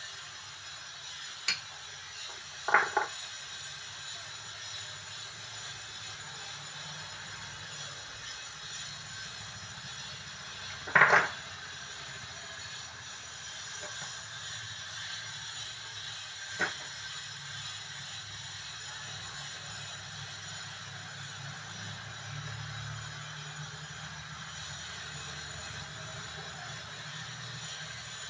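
A few short, sharp clicks and knocks from handling tools and parts on the workbench, over a steady hiss. The loudest knock comes about eleven seconds in, with a quick double one near the start.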